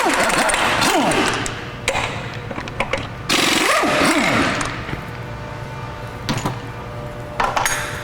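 Impact wrench hammering the lug nuts loose on a pickup's front wheel: two rattling bursts, the first about two seconds long and the second about one, each ending with the motor's pitch falling as it spins down. A few light clicks and clunks follow near the end.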